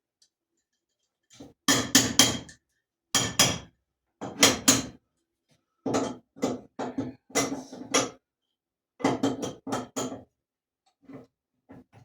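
Metal clanking on a steel jack post as it is knocked and adjusted into place: sharp strikes in quick groups of two or three, repeated every second or so, each with a short metallic ring.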